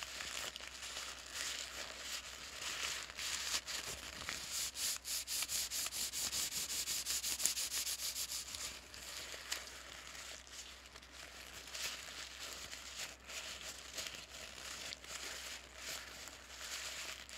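Paper bag being crinkled and crumpled by hand: dense, crisp crackling throughout, with a louder stretch of fast, rhythmic crinkles in the middle.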